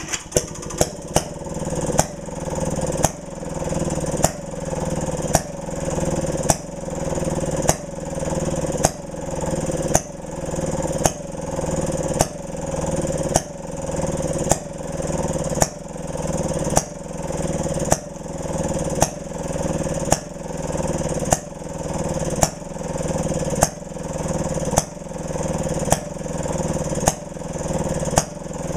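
1928 Maytag Model 92 twin-cylinder two-stroke engine starting up and running steadily. A sharp crack comes about once a second, and the running builds up again between each crack.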